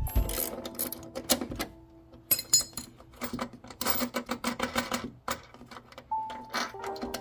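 A series of light metallic clicks and clinks as a chrome-plated 440C stainless steel door hinge pin and its parts are handled and fitted into a truck door hinge. A few of the knocks ring briefly.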